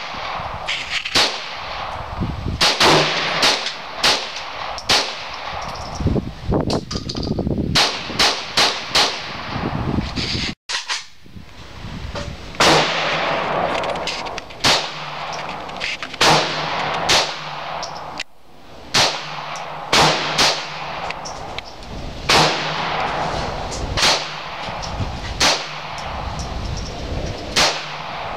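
Smith & Wesson Model 22A-1 semi-automatic .22 LR pistol firing a steady string of shots, roughly one or two a second, each with a short ringing echo.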